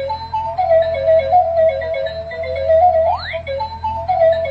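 Electronic toy-melody loop from a battery-powered crawling baby robot toy: short beeping notes in a simple tune, with a quick rising 'whoop' glide about three seconds in. A low steady hum runs underneath.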